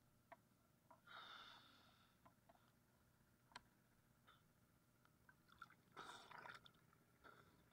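Near silence, with faint soft water splashes and sloshes about a second in and again about six seconds in, and a few small ticks.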